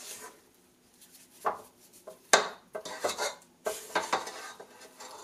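A spatula scraping and scooping thick cookie dough around a stainless steel mixing bowl, in a series of irregular scrapes and knocks against the metal.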